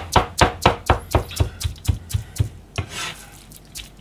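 Cleaver rapidly chopping salmon mince on a plastic cutting board: steady knocks about four a second, pausing briefly about three seconds in.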